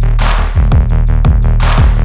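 Instrumental hip-hop backing track with no vocals: a drum-machine beat of fast, even hi-hat ticks, two snare or clap hits about a second and a half apart, and low kick drums over a steady heavy bass.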